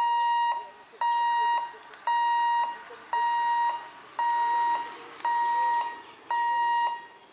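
Level-crossing warning buzzer beeping about once a second, each beep a steady high tone about half a second long, seven beeps in all, warning of the approaching train.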